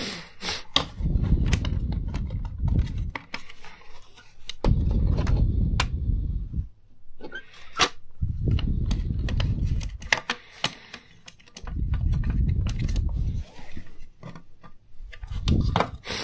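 Plastic clicks and snaps as the housing of a cordless vacuum's power brush head is unclipped and pried apart by hand. Under them, a low puff of breath on the microphone comes every three to four seconds.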